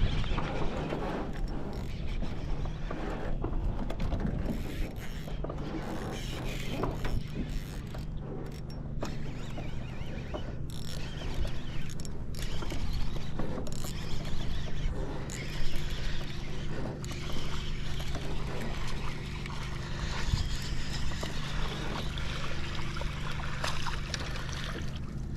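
A steady low mechanical hum with scattered clicks and knocks over it.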